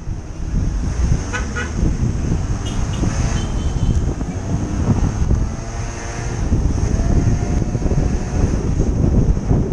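Wind buffeting the microphone on a moving motor scooter, over the scooter's engine running. A few short high toots come about a second in and again around three seconds.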